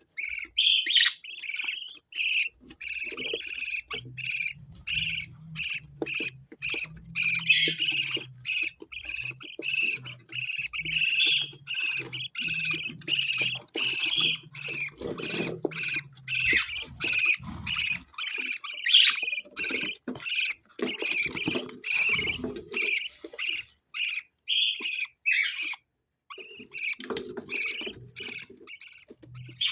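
Pet parrots calling in a rapid, continuous stream of short chirps and squawks, with a brief lull near the end.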